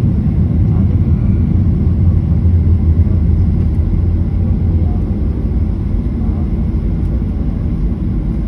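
Inside the cabin of a Boeing 737-800 taxiing: its CFM56 engines at low taxi power give a steady low rumble, with no spool-up.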